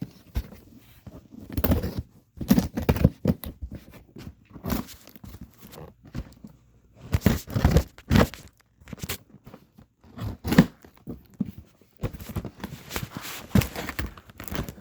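A shipped box being opened by hand: irregular tearing, crinkling and knocks of cardboard and packing material.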